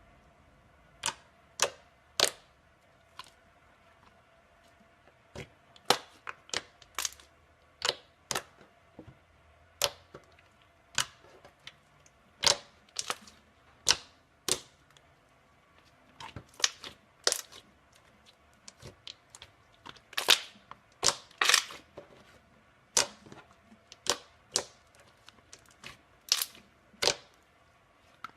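Slime being pressed and worked by hand, giving irregular sharp pops and clicks, some singly and some in quick clusters.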